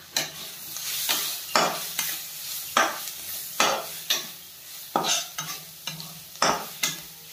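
Spatula stirring and scraping onions, green chillies and spice powders frying in oil in a wok: about a dozen sharp scrapes, one or two a second, over a steady sizzle.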